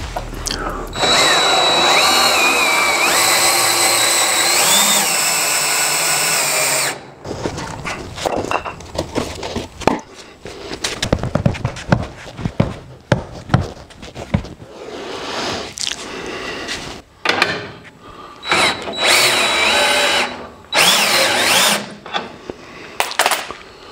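Power drill turning the screw of a scissor jack to lift a car body, its motor whining and wavering in pitch under load for about six seconds, then knocks and clatter, and two shorter runs near the end.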